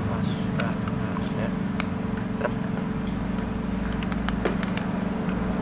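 A steady low mechanical hum, like an engine running nearby, with scattered light clicks of small carburetor parts being handled during reassembly.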